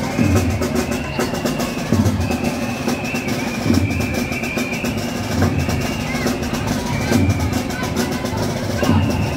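Street band playing live: a bass drum beats about every second and a half to two seconds under quick percussion strokes, with a high melody held in phrases above.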